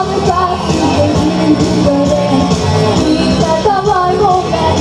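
Pop song with a girl singing the melody into a handheld microphone over a backing track with a steady beat.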